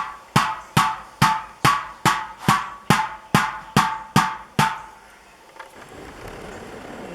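Hammer striking the copper bowl of a fire pit in an even rhythm, about eleven blows at roughly two and a half a second, each with a short metallic ring, as dents are worked out. The hammering stops about four and a half seconds in.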